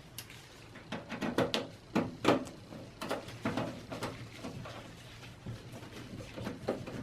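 Hands working on a desktop computer case: a run of sharp clicks, knocks and light scrapes, loudest about two seconds in and picking up again near the end.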